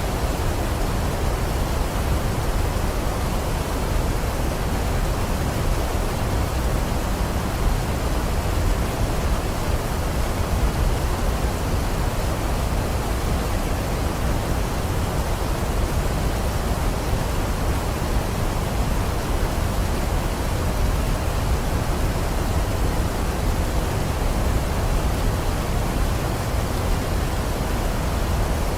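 Waterfall: a steady rush of falling water, deep and even, with no change throughout.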